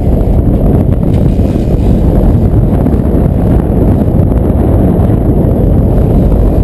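Wind buffeting a camera's microphone: a loud, steady low rumble with no breaks.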